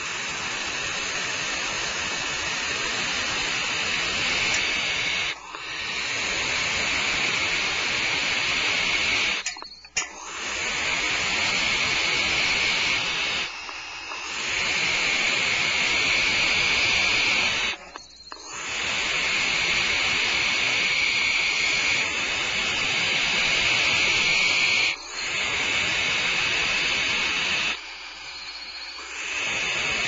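Barn owl nestlings hissing: long rasping hisses lasting several seconds each, broken by brief pauses.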